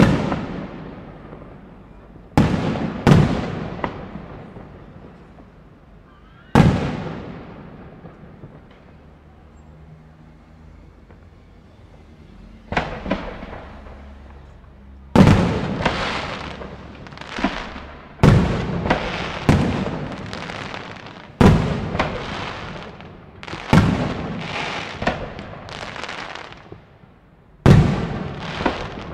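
Aerial firework shells bursting with sharp bangs, each followed by a long rolling echo. A few bursts come in the first seconds, then a lull of several seconds, then a quicker run of bursts, often in twos and threes, through the second half.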